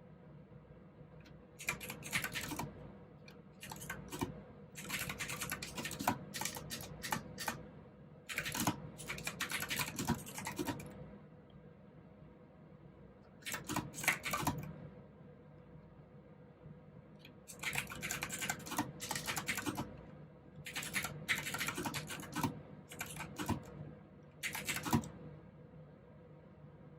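Typing on a mechanical keyboard with clicky blue switches, in spells of rapid keystrokes a few seconds long broken by short pauses.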